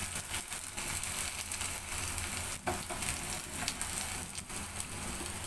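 Sun-dried rice pitha sizzling steadily as they deep-fry in hot oil in a wok, with scattered sharp clicks as a metal slotted spoon turns them against the pan.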